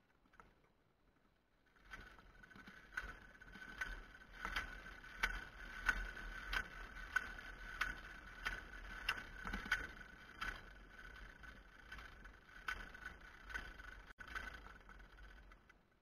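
Metal line cart travelling along an overhead ground wire (OPGW), a steady whine with regular clicks about one and a half times a second. It starts about two seconds in and fades near the end.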